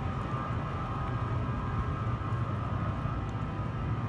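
Bombardier ALP-46A electric locomotive drawing near the platform: a steady low hum with a steady high whine over it.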